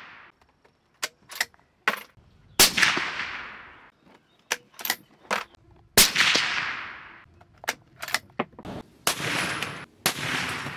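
Suppressed .308 Winchester Ruger American bolt-action rifle firing: two loud shots a few seconds apart, each followed by a long rolling echo, with small metallic clicks of the bolt being cycled between them. Two fainter shot reports come near the end.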